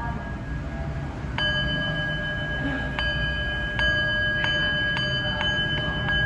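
Brass Buddhist bowl bell struck with a cloth-wrapped wooden striker about a second and a half in, ringing on with a steady high tone, followed by a run of further lighter strokes that keep it ringing.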